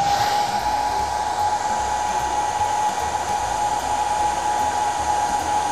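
Handheld heat gun blowing hot air, with a steady whine over a rush of air; it spins up just before and runs evenly, drying the adhesive under freshly applied flock fibres.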